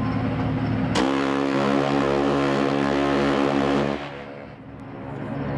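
Ship's horn blowing: a steady low tone, joined about a second in by a sharper, richer blast that holds for about three seconds, then dips and swells again near the end.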